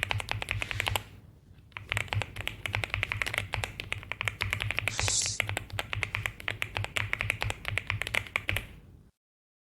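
Fast typing on a LOGA Yaksa 75Al aluminium-case mechanical keyboard: rapid keystroke clacks, a short pause about a second in, then typing again until it stops about nine seconds in. A brief hiss comes about halfway through.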